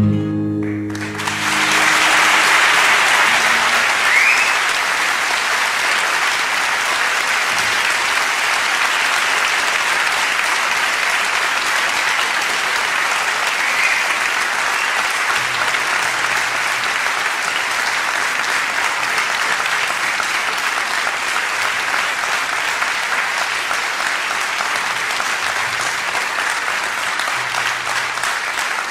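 The final acoustic guitar chord dies away in the first second or two, then an audience applauds steadily and at length.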